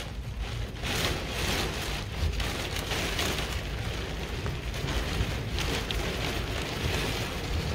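Heavy rain beating on a car's windshield and body, heard from inside the car, rising and falling in gusts over a deep steady rumble.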